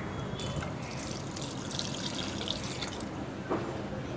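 Water being poured into a pressure cooker onto mutton pieces and spice powders, a splashing pour that starts about half a second in and stops about three seconds in. A light knock follows shortly after.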